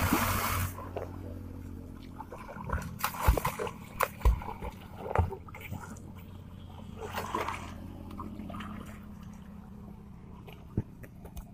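A body plunging into canal water with a loud splash at the start. Then the splashing and sloshing of a swimmer's strokes comes and goes.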